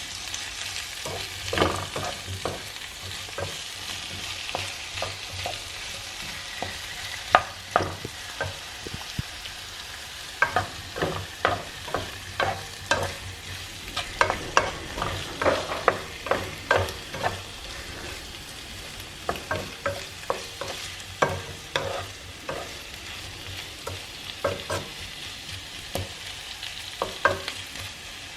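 Potatoes and artichokes sautéing in a pan with a steady sizzle, while a utensil stirs them, knocking and scraping against the pan many times at an irregular pace.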